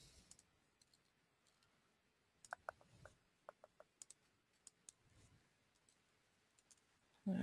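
Faint, scattered computer mouse clicks and keyboard keystrokes, about a dozen short clicks spread over several seconds, most of them in the second half.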